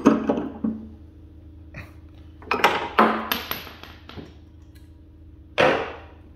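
Metal clanks and scraping of a pipe wrench on a threaded pipe fitting in a steel air tank as it is forced round: one clank at the start, a longer run of clanks in the middle, and another near the end.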